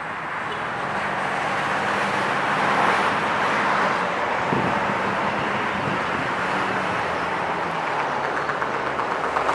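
Motor vehicle running: a steady low engine hum under a rushing noise that slowly grows louder.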